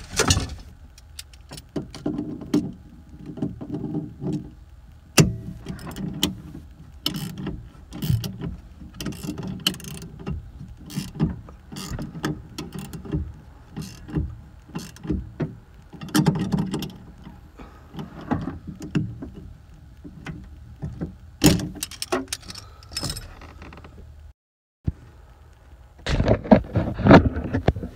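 Metal wrench clicking and clinking on the nut of a car's rear shock absorber top mount as the nut is worked tight, in irregular strokes. A burst of rough noise comes near the end.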